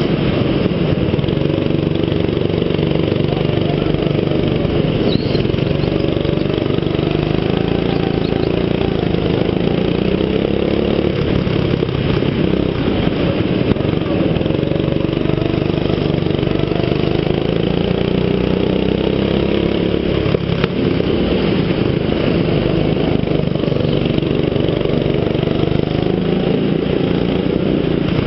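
Go-kart engine heard from the kart's own onboard camera, running hard, its pitch rising and falling again and again as the driver accelerates and lifts through the corners.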